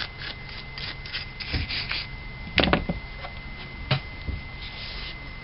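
Toothbrush bristles scrubbing an aluminium carburetor float bowl in quick strokes, about four a second, then two sharp knocks on the bench, followed by quieter rubbing as the bowl is wiped with a rag.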